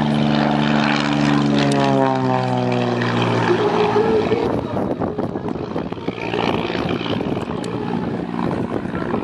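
Single-engine propeller light airplane passing close by: a strong engine-and-propeller drone that drops in pitch as it goes past, about two to three seconds in, then fades to a fainter, rougher sound as it climbs away.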